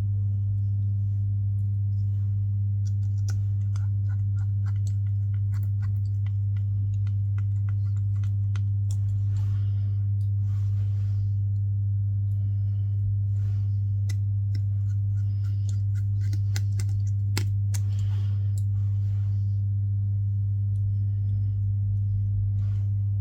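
A steady low hum at an unchanging level, with faint light clicks and a few brief rustles from small tools handling the phone.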